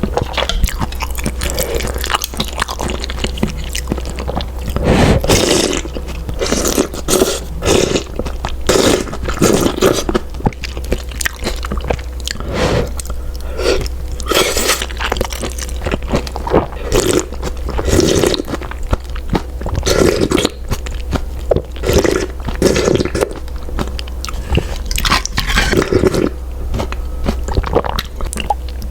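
A person eating malatang noodles: irregular repeated chewing and biting noises over a steady low hum.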